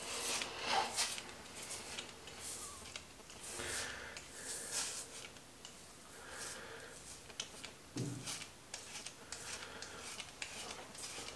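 Multi-blade cartridge razor scraping over a lathered scalp in a series of short, quiet strokes. The rasp shows the blades are still catching and cutting stubble. There is a soft knock about eight seconds in.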